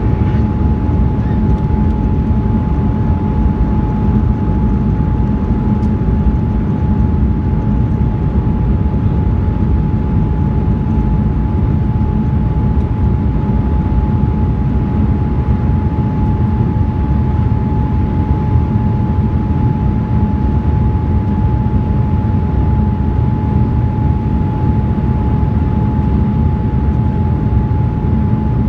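Jet airliner cabin noise in flight, heard at a window seat: a steady low rumble of engines and rushing air, with one constant whining tone above it.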